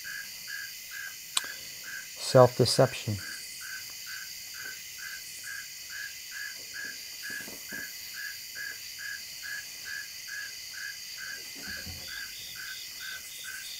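Night insects chirping in a steady, even rhythm of a little over two chirps a second.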